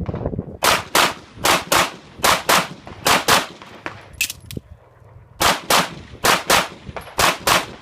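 Handgun fired rapidly in pairs of shots about a third of a second apart, four pairs in quick succession, two weaker shots around the middle, a short pause, then three more pairs: a practical shooting stage run against the clock.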